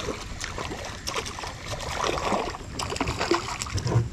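A small hooked crappie splashing and thrashing at the water's surface as it is reeled in on a spinning reel, with many quick clicks and a burst of splashing about two seconds in.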